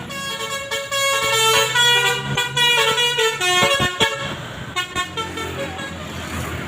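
Bus telolet basuri horn playing a tune of quickly changing notes for about five seconds, then stopping, over a low steady engine hum.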